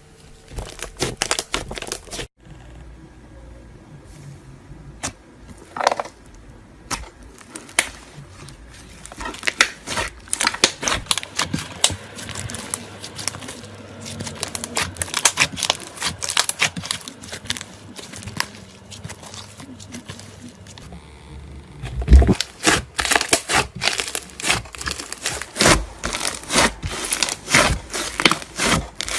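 Slime being squeezed and pressed by hand, giving irregular runs of sharp clicks and pops, with a quieter pause from about two to nine seconds in.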